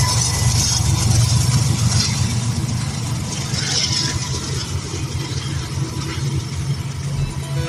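Rear distributed-power diesel locomotive of a Norfolk Southern freight train passing over a road crossing and moving away, its steady low engine rumble slowly fading.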